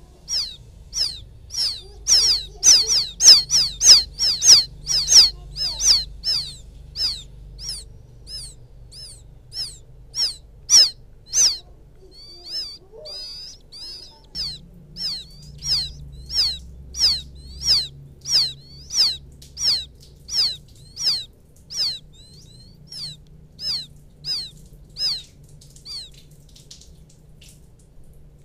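Quail chicks peeping to call the mother bird: a long series of short, high, downward-slurred peeps at about two a second. The peeps come faster and louder a few seconds in, and there is a brief lull about halfway.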